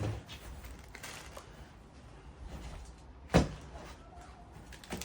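Parts and packaging being handled: light rustling and shuffling, with one sharp knock about three and a half seconds in and a smaller one near the end, as a part is set down.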